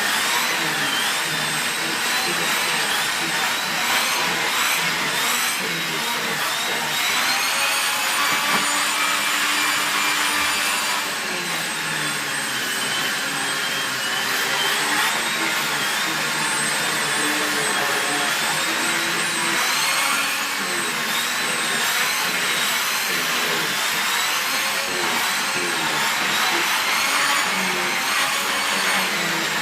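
SEBO Felix bagged upright vacuum cleaner running steadily with the turbo tool on its hose, its motor whine wavering up and down in pitch.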